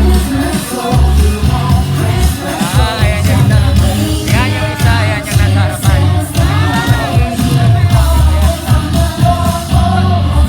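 A Christmas pop song with a singer over a steady bass beat.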